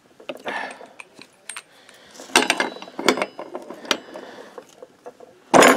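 Ratchet wrench clicking in short runs as it is worked back and forth on a large socket, tightening the variator nut. A louder clatter of metal comes near the end.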